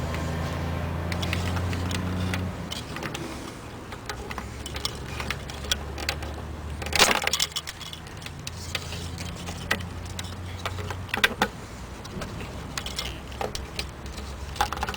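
Irregular clicks and rattles of plastic parts being handled as the wiring and bulb sockets are worked off a car headlight assembly, with a louder crackling rattle about seven seconds in. A steady low hum runs underneath, stronger for the first couple of seconds and fading out later.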